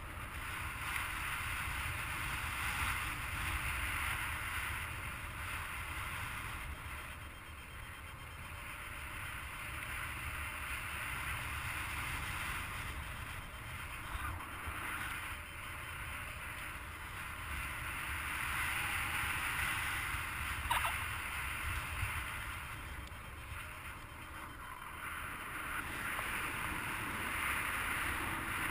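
Wind rushing over the camera microphone of a paraglider in flight, a steady hiss with a low rumble that swells and eases every several seconds as the glider circles. There is a single brief click about two-thirds of the way through.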